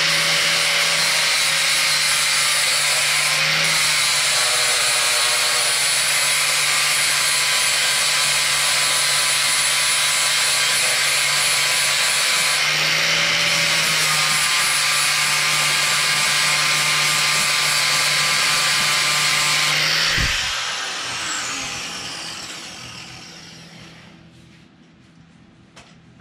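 Corded angle grinder with a flap disc grinding down a cast aluminum motorcycle engine case. It runs steadily for about twenty seconds, then is switched off and spins down, its pitch falling as it fades out.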